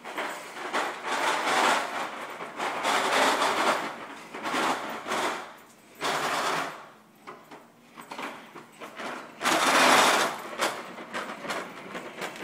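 Plastic wheels of a toddler's push toy rattling and rolling in uneven bursts as it is pushed across carpet, loudest about ten seconds in.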